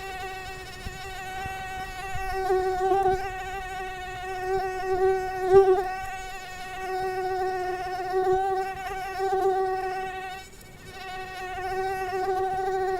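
Mosquito in flight, its wingbeats making a steady whining hum with overtones. The hum swells and fades as the insect moves nearer and farther, and dips briefly near the end.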